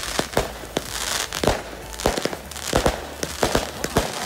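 Sharp, irregular cracks and bangs, several a second, over a steady hiss from a large blazing bonfire.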